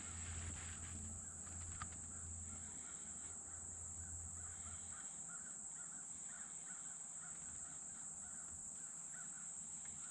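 Faint outdoor ambience: a bird calls repeatedly in a quick series of short calls, over a steady high-pitched insect drone.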